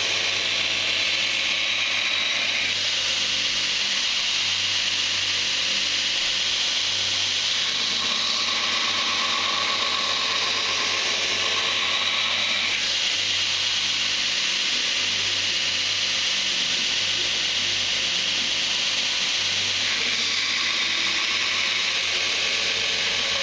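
Belt grinder running with a D2 steel blade held against the abrasive belt: a steady hiss of belt on steel that shifts in tone every few seconds as the blade is moved and pressed.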